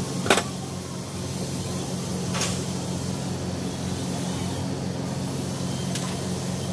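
Steady low mechanical hum of a running engine or machine, with a sharp metallic knock about a third of a second in, a softer knock a couple of seconds later and a light click near the end.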